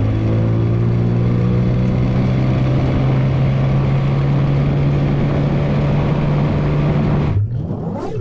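Tiller-steered outboard motor on a jon boat running at a steady speed under way, with water rushing along the hull. It cuts off suddenly about seven seconds in, and a short sweeping whoosh follows near the end.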